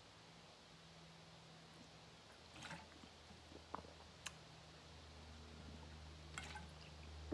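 Near silence: room tone with a faint steady low hum and a few soft, scattered clicks.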